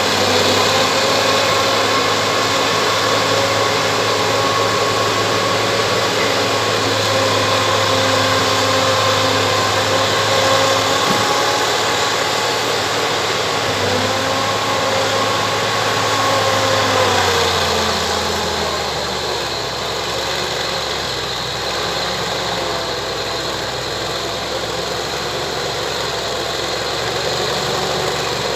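Bulldozer's diesel engine running at high revs, dipping briefly a little before halfway, then dropping to a lower, steadier idle about two-thirds of the way through.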